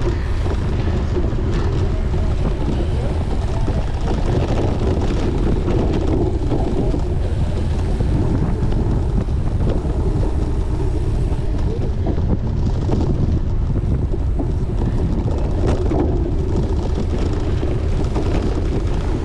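Wind rushing over the microphone of a camera on a racing bicycle at speed: a steady, loud rush with a heavy low rumble.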